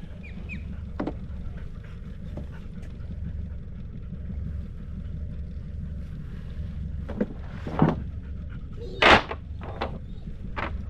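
Boat's outboard motor idling low and steady, with a few short sharp knocks or splashes in the last few seconds, the loudest about nine seconds in.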